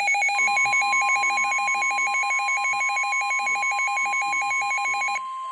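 A weather radio's alert alarm beeping rapidly, about eight pulses a second in two alternating tones, over the steady 1050 Hz NOAA Weather Radio warning alarm tone, which comes in just after the beeping starts. The beeping cuts off about five seconds in while the steady tone carries on, signalling an incoming warning broadcast.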